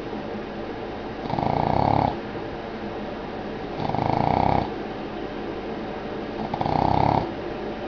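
Boston terrier snoring in its sleep: three snores, one about every two and a half seconds, each lasting under a second.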